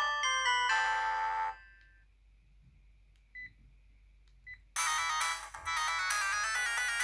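Sharp GX12 mobile phone playing polyphonic ringtones through its speaker. One melody stops about a second and a half in, two short beeps follow, and a different ringtone starts near the end.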